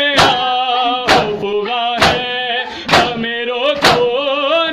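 Men chanting a Shia noha (lament) in Urdu, with a sharp chest-beating slap (matam) landing in time with the chant about once a second.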